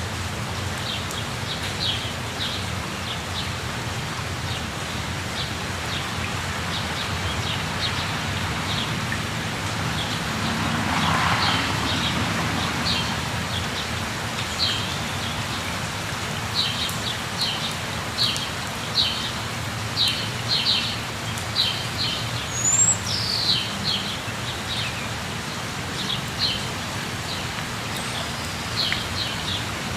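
Steady rush of a jungle waterfall with birds chirping in quick repeated notes over it, and one short falling whistle about two-thirds of the way through. The water noise swells briefly about ten seconds in.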